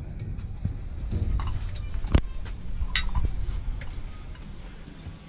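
Light clicks and knocks of a plastic gear-oil squeeze bottle and its fill tube against the rear differential as oil is squeezed into the fill hole, over a low rumble of handling noise. The sharpest knock comes about two seconds in.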